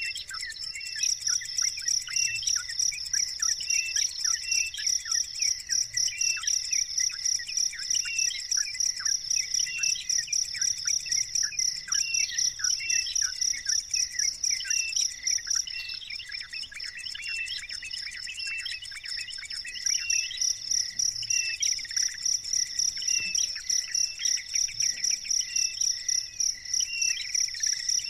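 A cricket chirping in a fast, even pulsed trill that stops about halfway through and starts again a few seconds later, with short high bird chirps repeating over it.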